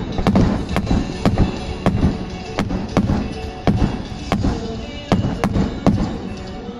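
Aerial fireworks shells bursting in a rapid barrage, sharp bangs about two a second that thin out toward the end, with music playing underneath.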